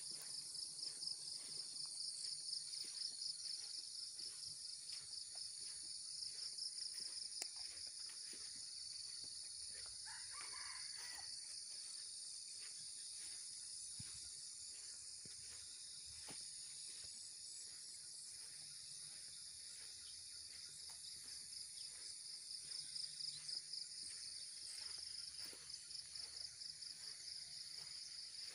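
Steady, high-pitched chorus of insects trilling, with one fast pulsing trill over a continuous higher hiss.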